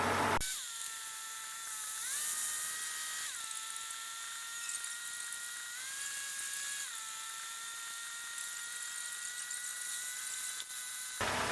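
Thin, high whine of the Cessna 152's engine heard through the headset intercom with the low sounds cut away, its pitch stepping up and down a few times while taxiing.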